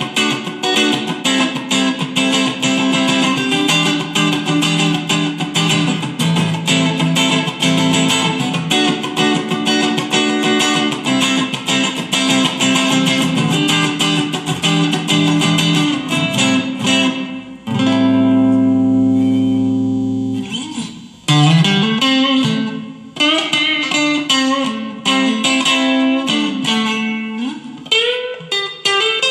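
Chinese Stratocaster-copy electric guitar on its neck pickup, played through a Fender Mustang amp set for a clean Twin Reverb-style tone. Quick picked single-note lines give way to a chord left ringing about two-thirds of the way through, then notes bent upward and more picking.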